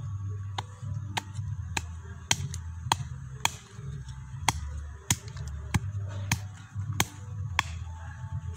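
Cleaver blade chopping repeatedly into the hard-packed earth of a termite mound: sharp strikes about every half second, over a steady low rumble.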